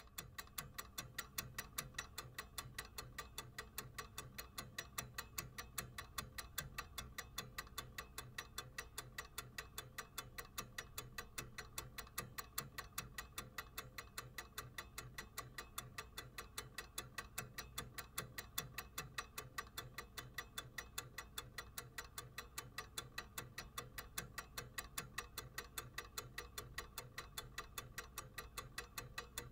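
Clock ticking: a quick, even run of ticks, several a second, which never changes pace.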